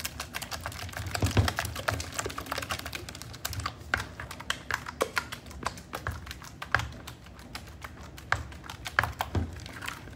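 Spatula beating thick cake batter in a clear mixing bowl: quick, irregular clicks and knocks as it strikes and scrapes the bowl, with the wet batter squelching.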